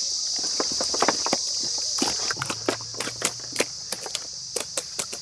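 Crickets chirring steadily, with irregular sharp knocks and clicks of work close by.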